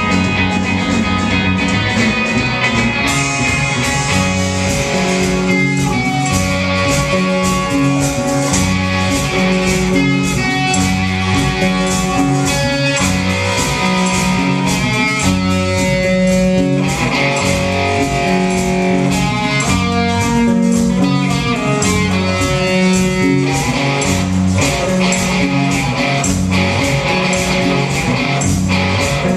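Instrumental break of a song: guitars playing held, changing notes over a bass line and a steady beat, with no singing.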